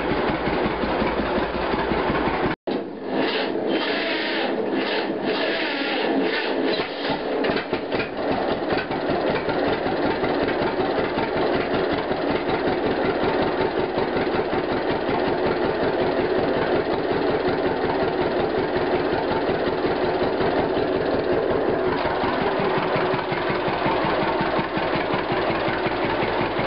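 John Deere Model A's two-cylinder engine idling with a steady, even beat of exhaust pulses.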